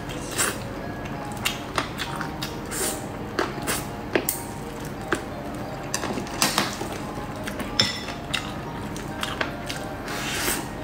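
Close-miked eating of braised chicken pieces: wet chewing, sucking and lip smacks with many sharp mouth clicks, and a short slurp from a spoon near the end.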